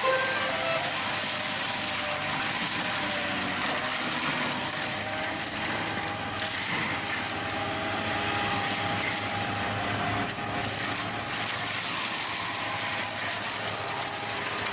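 Steady mechanical running noise of machinery, an even rumble and hiss with faint steady tones and no clear rhythm.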